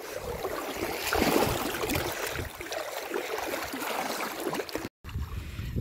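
Water sloshing and splashing with irregular footfalls as people wade along a shallow river edge. It cuts out briefly about five seconds in, giving way to a low rumble of wind on the microphone.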